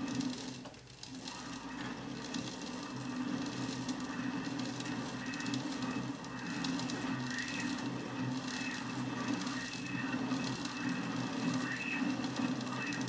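Small Chinese combination lathe/mill/drill running under power, a steady motor-and-gear-train hum with a constant high whine, while the cutter takes a pass cutting a left-hand thread. The level dips briefly about a second in.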